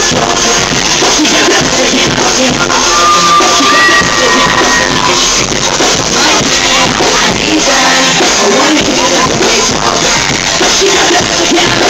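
Loud live hip-hop/pop performance through a PA system: a male rapper's amplified vocals over a backing track.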